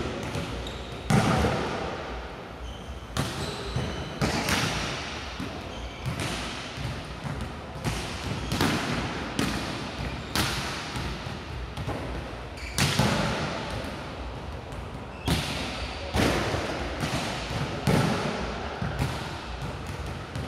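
A ball thumping again and again on the hard floor or walls of an echoing sports hall, roughly once a second at an uneven pace, each hit ringing on for a moment.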